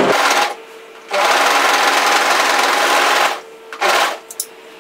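Brother 1034D overlocker (serger) running in stop-start bursts as it overlocks a fabric edge. A run stops about half a second in, a steady run of about two seconds follows, then a brief blip near the end and a couple of light clicks.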